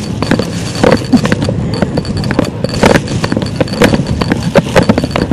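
Large thin plastic shopping bag being handled and crumpled by hand, rustling with many irregular sharp crinkles.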